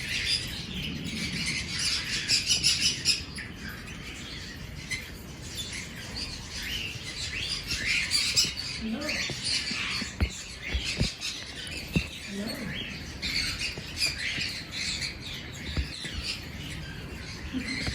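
A flock of small caged birds chirping and chattering continuously, many calls overlapping. A few light knocks come about ten to twelve seconds in.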